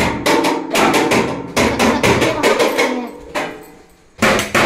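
A long stick banging hard and repeatedly, about four or five sharp knocks a second. The knocks drop away for about a second near the end, then start again.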